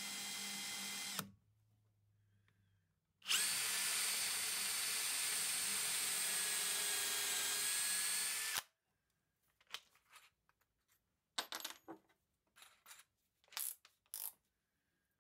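Power drill boring a dowel hole into the end grain of a maple chair leg: one run stops about a second in, and after a pause a second steady whine lasts about five seconds and cuts off. A few light clicks and knocks follow near the end.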